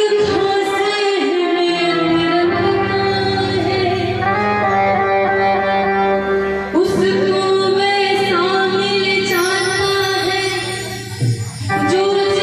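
Devotional bhajan music: long held, wavering notes of singing and instruments, with short breaks about seven seconds in and near the end.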